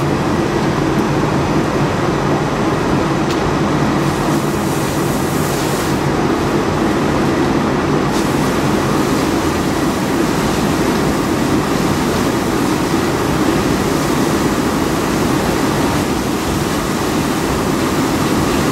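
Steady, loud rumble of a fire hose stream spraying water onto a burning Chevy Avalanche pickup, over the fire engine's pump running steadily.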